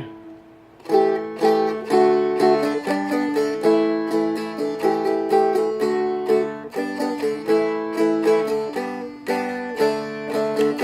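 Seagull Merlin M4, a four-string fretted dulcimer, strummed in a quick, steady rhythm through a chord progression of A, G and D. The strumming starts about a second in and goes on with the chords changing every second or so.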